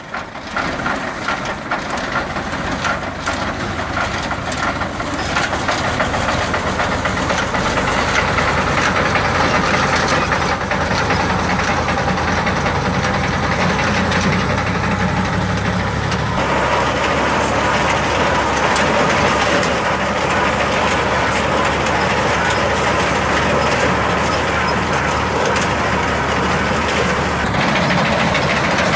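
New Holland Fiat 480 tractor's three-cylinder diesel engine running steadily under load, driving a front-mounted reaper binder as it cuts standing wheat. Engine and reaper machinery together, with the balance of the sound shifting about halfway through.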